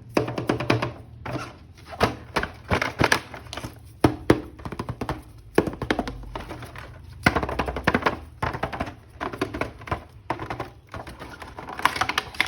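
Hands handling a plastic action-figure toy and its packaging: an irregular string of clicks, taps and knocks.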